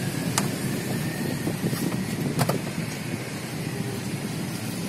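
Steady hum of passing road traffic, with a few sharp clicks on top.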